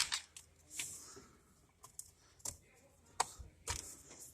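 Scattered light clicks and taps, about seven or eight over four seconds, from a cobalt drill bit set and its case being handled.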